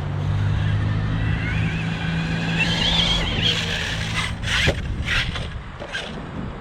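Traxxas T-Maxx RC monster truck's brushless motor on 6S, whining higher as the truck accelerates flat out. About four and a half seconds in come a few sharp knocks as the truck hits the ground and loses control.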